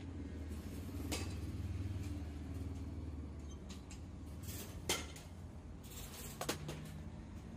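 A bat hitting pitched balls in a batting cage: a few short, sharp cracks, the loudest about five seconds in and two more near the end, over a steady low hum.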